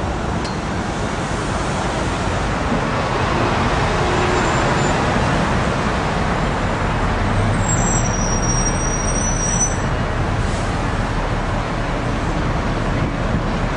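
Steady road and traffic noise heard from the open top deck of a moving tour bus, with passing cars and the bus's own engine mixed in. A faint high squeal comes in briefly about halfway through.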